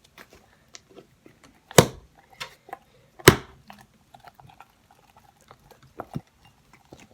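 Homemade slime being handled and pulled from a cup: a run of small wet, sticky clicks and squelches, with two sharp, loud clicks about two and three seconds in.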